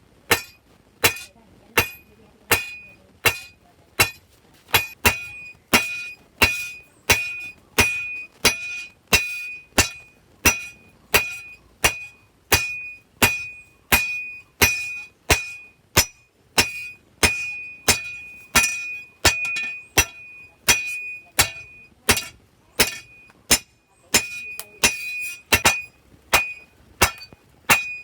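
Hand hammer striking hot steel on an anvil in a steady rhythm, a little under two blows a second, each blow leaving a short bright metallic ring.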